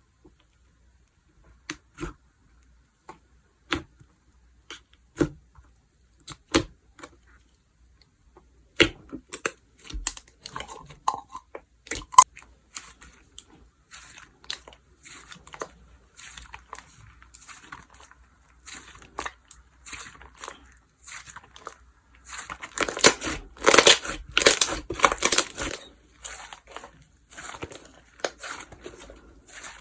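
Slime being handled by hand: a few separate clicks and taps at first, then from about nine seconds in steady crackling and crunching as the slime is pressed and stretched, loudest for a few seconds in the last third.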